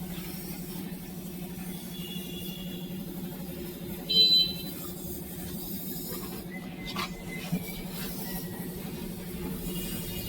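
Steady low machine hum. About four seconds in there is a brief, loud, high-pitched chirp.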